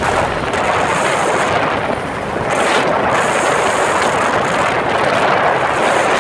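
Helicopter in flight heard from on board: a loud, steady rush of wind and rotor noise on the microphone.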